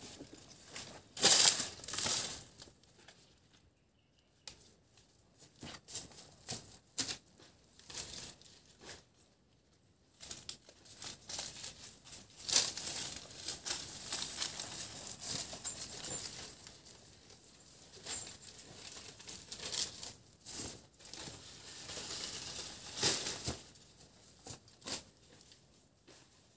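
Dry banana leaves rustling and crackling in irregular bursts under footsteps and handling as banana bunches are carried and loaded into a cart.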